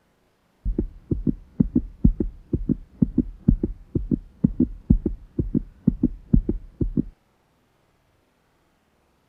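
A rapid, even run of dull low thumps, about three a second, lasting some six seconds, then stopping.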